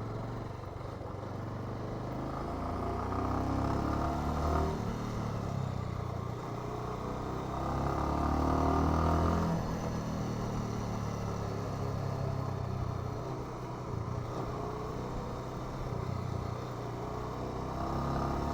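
Bajaj Avenger Cruise 220's single-cylinder engine and exhaust running as the motorcycle is ridden, the note swelling under throttle and easing off again several times.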